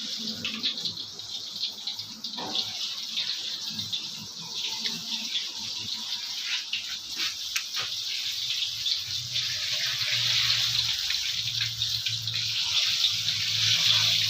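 Water running steadily from a tap into a kitchen sink, with a few brief clatters.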